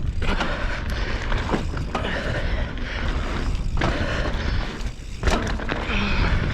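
Mountain bike rolling fast down a dirt singletrack: tyre noise on the dirt and wind rushing over the microphone, with knocks and thuds from roots and bumps, one sharper knock about five seconds in.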